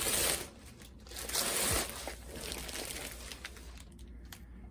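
Plastic mailer bag crinkling and rustling as a cross-stitch kit in clear plastic packaging is pulled out of it: two louder bursts of crinkling about a second and a half apart, then quieter rustling.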